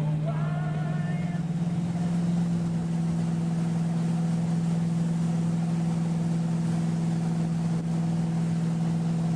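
Motorboat engine running steadily with a constant hum, its pitch rising slightly within the first two seconds and then holding.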